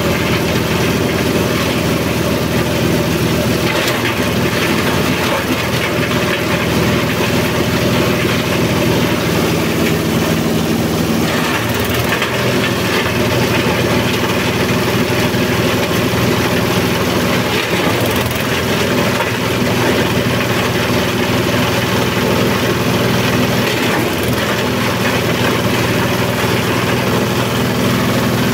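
Small single-cylinder diesel engine running steadily under load, driving a forage chopper that is cutting corn stalks: a continuous loud engine drone mixed with the noise of the chopping, the engine note shifting slightly now and then as stalks are fed in.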